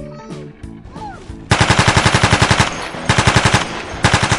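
Rapid machine-gun fire sound effect in two bursts, the first a bit over a second long and the second shorter, after a stretch of background music.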